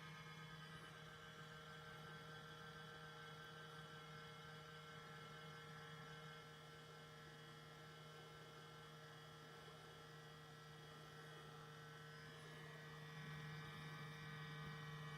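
Laptop making an abnormal noise on start-up: a faint, steady low hum with thin whining tones above it, a little louder near the end.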